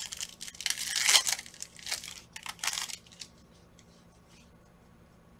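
Foil wrapper of a Panini Prizm trading-card pack being torn open and crinkled by hand, in quick bursts for about three seconds, loudest about a second in; after that only a few faint clicks.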